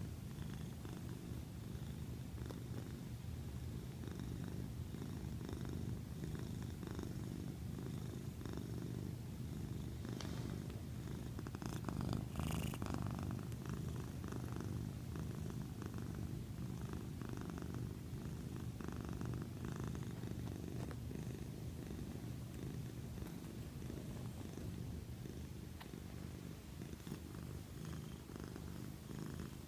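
Domestic cat purring steadily, close up, with a brief rustle about twelve seconds in.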